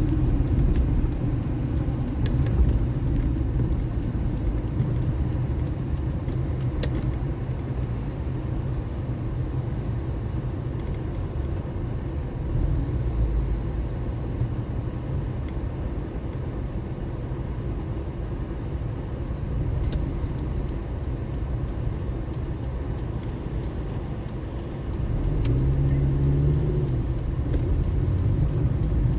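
A car driving in city traffic: a steady low engine and road rumble. About 25 seconds in, a deeper engine note comes up and the sound grows louder.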